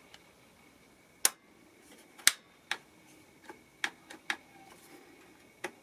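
Scattered sharp plastic clicks, about seven at irregular intervals, from the choke lever and throttle trigger of a Stihl MS180 chainsaw being worked by hand.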